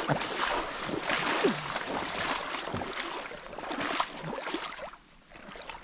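Shallow river water splashing and sloshing around an angler's wading legs, dying down about five seconds in.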